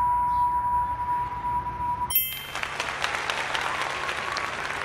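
Sound effects: a steady beep tone paired with a red 'wrong' X cuts off about two seconds in, then a bright chime and a burst of applause go with a green 'right' check mark.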